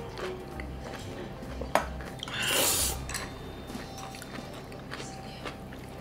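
Spicy cold noodles (bibim-myeon) being slurped, a loud hissing draw lasting under a second near the middle, with a sharp clink just before it as a brass drinking bowl is set down on the table; small eating clicks around them.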